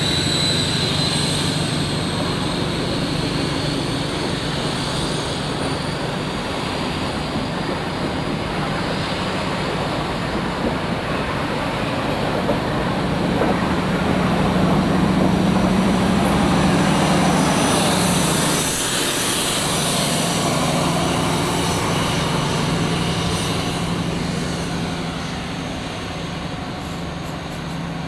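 InterCity 125 HST with Paxman Valenta-engined class 43 power cars passing: the diesel engine drones under the rumble of the wheels and coaches, with a high-pitched Valenta whine rising in pitch in the first few seconds. It grows loudest around the middle and fades near the end as the train draws away.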